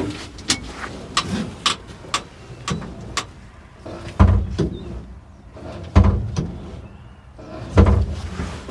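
Brake pedal of a 1952 Willys truck being pressed and released over and over: a run of light clicks, then three heavy thumps a little under two seconds apart.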